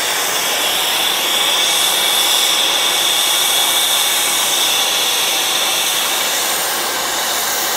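Acetylene B-tank brazing torch flame burning steadily on a copper pipe joint: a steady rushing hiss with a steady high note in it, heating the copper toward cherry red for sil-fos brazing.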